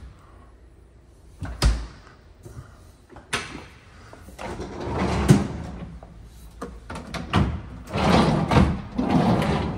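Samsung stainless French door refrigerator being handled: a door shuts with a thump about a second and a half in, then the pull-out freezer drawer slides open on its runners with a knock, followed by more rattling of the drawer and its plastic bins near the end.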